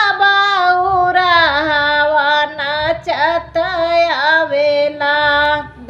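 A woman singing a Bhojpuri devotional bhajan to Shiva, with long held notes that slide in pitch.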